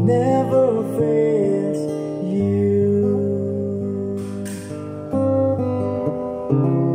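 Acoustic guitar strumming chords that ring on, with four chord changes struck over the passage.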